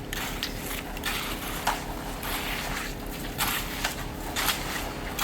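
Wet concrete being spread and worked with hand tools: repeated scraping, squishing strokes, several times a second or so, over a steady mechanical hum.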